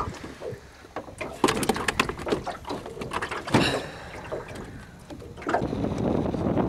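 A quick run of clicks and knocks from gear being handled in a small aluminium fishing boat, with more scattered knocks after it.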